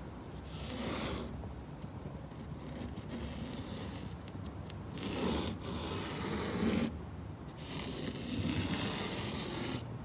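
A fingertip tracing letters in sand: a few separate scraping strokes, each about a second long, the longest near the end.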